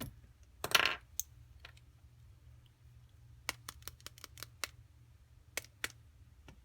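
Small hard metal tools and parts clicking and clattering on a workbench while a dropped screw is hunted for. There is a short rattle about a second in, then a quick run of about half a dozen sharp clicks past the middle and two more clicks later on.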